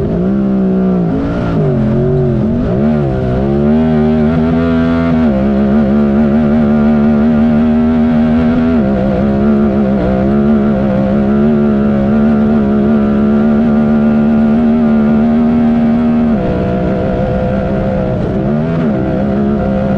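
Honda Talon UTV's 999 cc parallel-twin engine running hard under throttle. Its pitch dips and rises over the first few seconds, holds steady at high revs for about ten seconds, then drops a little and wavers again near the end.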